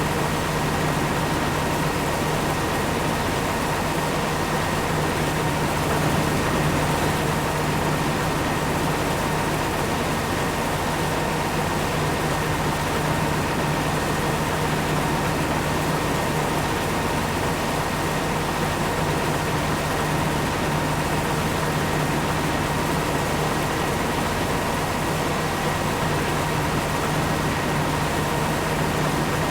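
Farm harvesting machinery running steadily: an even engine drone with a constant higher-pitched whine over it.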